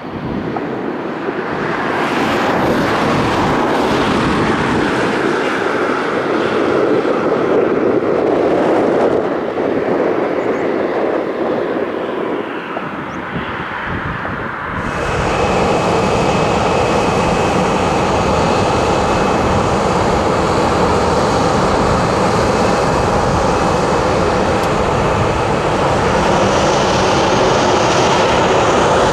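Jet engine noise from a Boeing 737-800's CFM56 engines as the aircraft arrives: a steady rushing sound. About halfway through it jumps louder, as a deep rumble and a thin steady whine come in.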